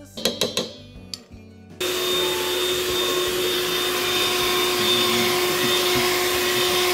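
A few sharp taps and scrapes of a spatula against a glass dish, then an electric hand mixer switches on about two seconds in. The mixer runs at a steady speed with a constant motor whine, its beaters whisking batter in a steel bowl.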